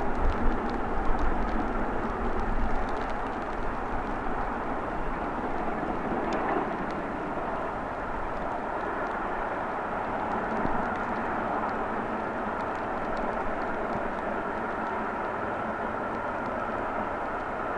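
Distant steam locomotives, a pair of LMS Black Five 4-6-0s, working hard: a steady far-off roar with no distinct exhaust beats, easing over the first several seconds and then holding level. Wind buffets the microphone in the first few seconds.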